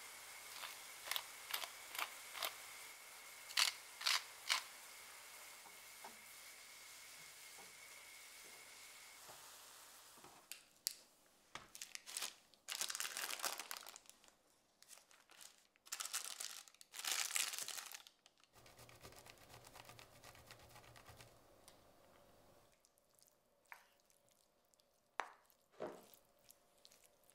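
Chopped mushrooms and onions sizzling in a frying pan, with a few sharp taps. Then baking parchment crinkles loudly in two bursts as a baked zucchini sheet is handled on it, followed by soft scrapes and knocks as the mushroom filling is spooned on with a wooden spoon.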